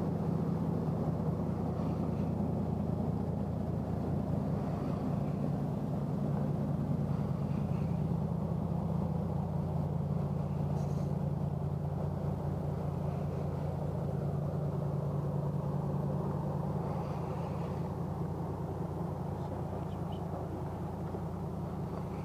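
A steady low engine drone that eases slightly toward the end.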